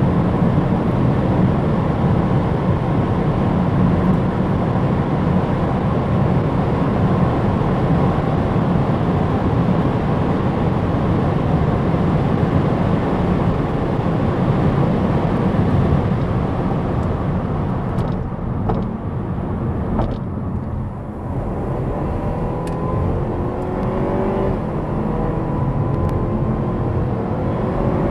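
Opel Insignia GSi driven at high speed, with engine, wind and tyre noise holding steady. About two-thirds of the way through, the sound drops back briefly with a couple of clicks. Then the engine note rises again as the car accelerates.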